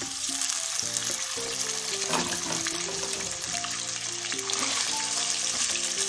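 Boiled mutton pieces sizzling as they fry in hot oil in a wok, stirred now and then with a spatula, with a steady hiss throughout.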